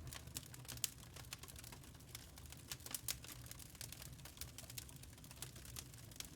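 Log fire crackling in a fireplace: irregular sharp pops and snaps, several a second, over a low steady rumble.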